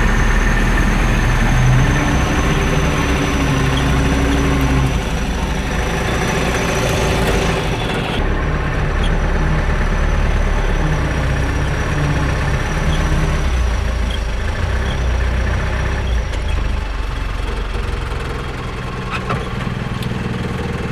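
Truck engine running steadily at low speed, heard from inside the cab as it drives along a rough dirt track. The sound changes abruptly about eight seconds in.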